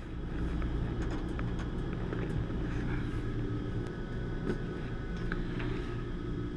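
Steady low hum of running equipment, with a few faint light clicks as cables and cases are handled.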